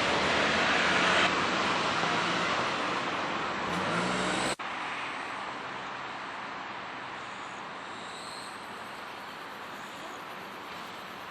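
Electric commuter train running past over a level crossing, a steady rumbling rush of wheels on rail that slowly eases. About four and a half seconds in it cuts off suddenly to a much quieter, steady background hum of traffic.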